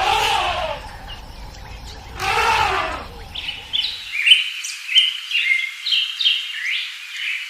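Two drawn-out animal calls that fall in pitch, then, after an abrupt cut about three seconds in, small birds chirping in quick, short notes.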